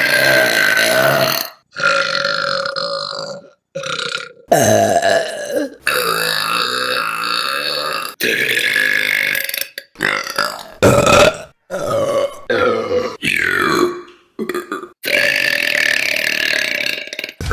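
Women burping, one burp after another in quick succession, about a dozen in all: some short, some long and drawn out. Each is broken off abruptly as the next begins.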